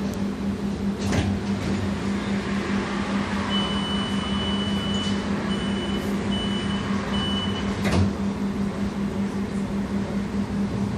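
Interior of a Moderus Gamma low-floor tram: a steady electrical hum, with the door warning signal of one long high beep about three and a half seconds in, then three short beeps. A knock about a second in and a louder thump near eight seconds follow.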